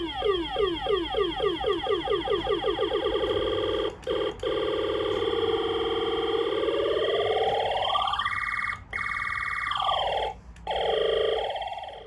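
Homemade ray gun sound-effects circuit playing synthesized laser sounds through its small speaker: rapid falling "pew" chirps, about five a second, speed up and blend into one steady tone. The tone then sinks and rises in pitch, with a few brief cut-outs near the end, as the effect's three potentiometer knobs are turned.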